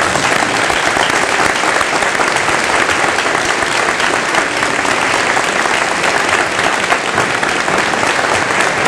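Large audience and standing graduates applauding: dense, steady clapping throughout.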